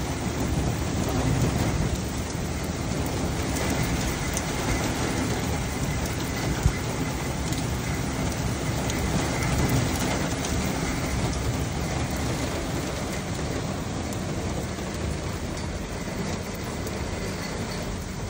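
Heavy rain pouring steadily, a dense hiss of rain hitting the street and surfaces close by. There is a single sharp tap about seven seconds in.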